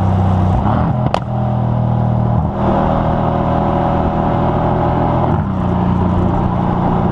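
Exhaust of a 2016 Mercedes-AMG C63 S Coupe's twin-turbo V8 with the AMG Performance Exhaust, heard close at the tailpipes while driving. The engine note shifts a few times, with a single sharp crack about a second in.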